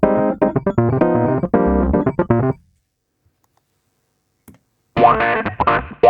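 Rhodes V8 Pro sampled electric piano (Rhodes MK8) playing a short funky chord phrase through heavy compression. It stops about two and a half seconds in. After a pause, a brighter, denser passage starts near the end.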